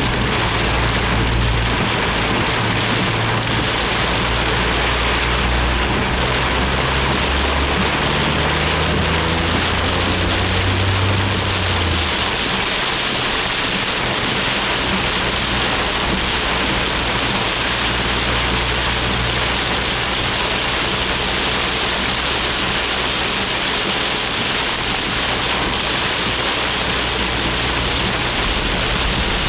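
Heavy rain drumming steadily on a Suzuki Jimny's roof and windscreen, heard from inside the cabin. Under it runs the engine's low note, which shifts in pitch several times in the first dozen seconds and then settles.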